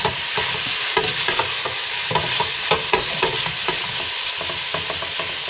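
Sliced bell peppers and onions sizzling steadily as they fry in olive oil and butter in a metal pot, while a spatula stirs them, with frequent irregular scraping clicks against the pot.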